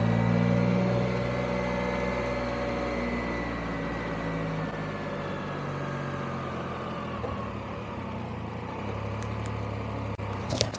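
Touring motorcycle engine running at low speed, its note falling gradually over the first few seconds before settling into a steady low hum, with road and wind noise. A few sharp clicks sound near the end.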